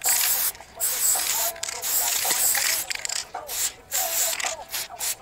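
Aerosol spray-paint can hissing as black paint is sprayed onto a rough stone wall to write a tag. The hiss comes in a run of short bursts, stopping and starting about every half second to second between strokes.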